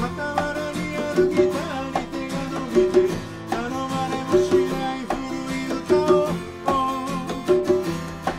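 Acoustic band music: plucked string instruments playing a steady, repeating rhythm with a melody line over bass notes.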